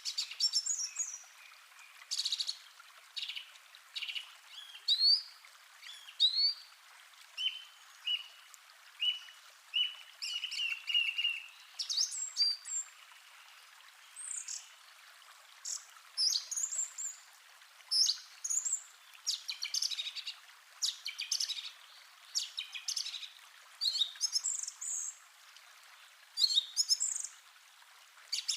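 Forest ambience: several songbirds chirping and singing in short phrases throughout, one repeating a quick series of short notes partway through, over a faint steady hiss of running water.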